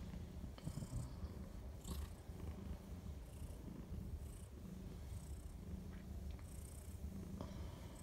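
British Shorthair cat purring steadily, a low, even throb, while her belly is stroked.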